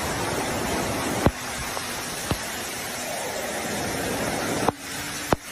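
Muddy floodwater rushing in a fast, churning torrent, a steady loud noise of water, with a few sharp clicks on top.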